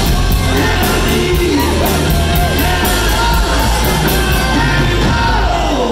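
Live rock band playing loud: electric guitar, bass guitar and drums with cymbals, and a lead singer.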